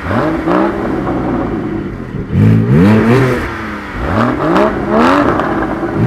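Porsche Cayman GT4 naturally aspirated flat-six engines revved while standing still: repeated quick throttle blips, each a rising then falling pitch, about every two seconds.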